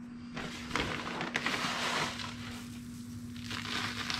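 Granular oil absorbent poured from its bag onto a puddle of spilled engine oil on a concrete floor, the granules hissing and rattling down. There are two pours: a longer one starting about half a second in, and a shorter one near the end.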